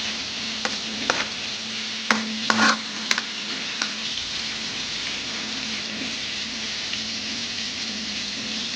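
Food sizzling steadily in a cooking pan, with a utensil knocking and scraping against the pan a few times in the first four seconds, the loudest around two to three seconds in. A steady low hum runs underneath.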